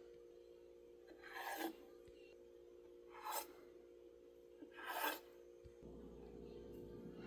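Three short scraping strokes about a second and a half apart, over a steady low hum.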